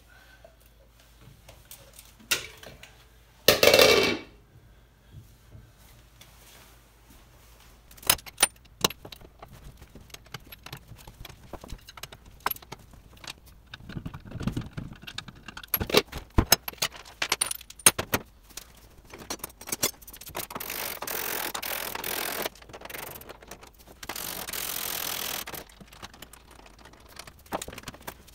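Metal clinks and clanks as the hubcap and front wheel come off a 1938 Chrysler: a loud clatter about four seconds in, scattered sharp clicks and knocks, and two steady rushing stretches of about two seconds each in the last third.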